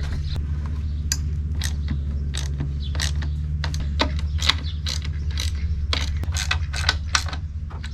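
Ratchet wrench clicking in short strokes, about three clicks a second, as a loose bolt on the motor mount of a gas-powered post hole digger is tightened. A steady low hum runs underneath.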